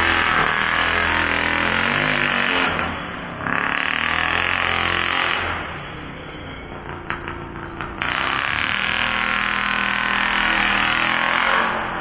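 29cc two-stroke engine of a 1/5-scale Baja 5T-style RC truck revving hard in three bursts of throttle, easing off in between, with a few clicks in the quieter middle stretch. Background music plays underneath.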